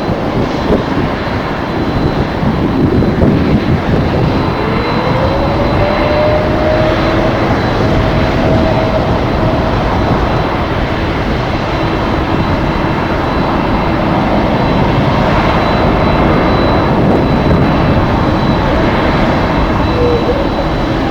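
Jet airliner engines running loud and steady, with a whine that rises in pitch about four seconds in and then holds.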